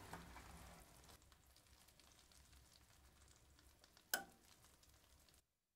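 Freshly baked almond florentine topping, a caramel of butter, sugar, cream and honey coating sliced almonds, faintly sizzling and crackling on its tray in a toaster oven whose door has just been opened. A few light clatters come in the first second and a single sharp click a little over four seconds in. The sound cuts off suddenly near the end.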